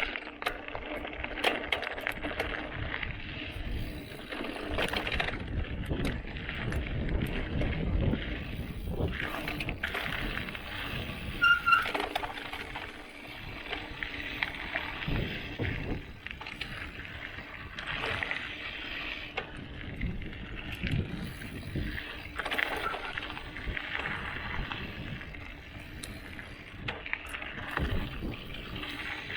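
2020 Santa Cruz Highball mountain bike ridden along a dirt trail: Maxxis knobby tyres rolling, with the frame and drivetrain rattling over bumps and a brief high squeak about a third of the way in.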